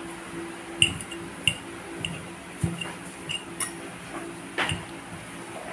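Metal fork clinking and scraping against a bowl while mashing boiled tofu, a string of irregular sharp clinks.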